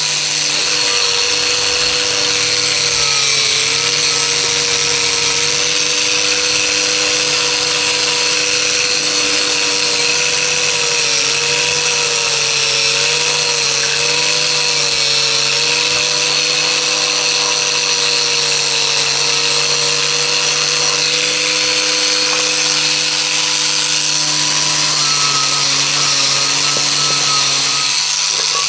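A power tool running steadily, a constant hum with a strong hiss over it. Its pitch dips slightly a few times, and its higher tones drop out near the end.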